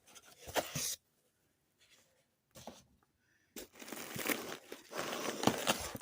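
Foam packing material being handled and pulled out of a shipping box, crinkling and tearing. It comes in a short burst about half a second in, then runs steadily from about three and a half seconds in.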